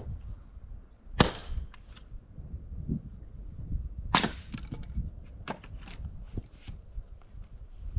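Tamarack firewood being split with an axe: sharp wooden cracks and knocks, the loudest about a second in, then two more about four and five and a half seconds in, with smaller clatters between.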